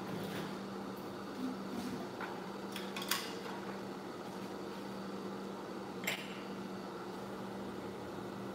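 A few light clicks and taps of plastic toy kitchen pieces and dough tools handled on a table, the sharpest about three seconds in, over a steady background hum.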